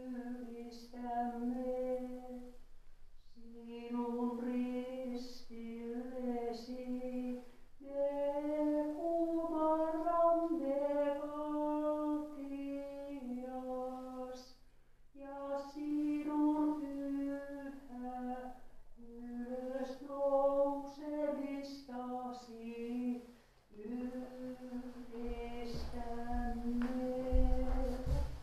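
A solo female voice chants an Orthodox liturgical hymn in Finnish without accompaniment, in long held phrases with short pauses for breath. A low rumble and a knock come near the end.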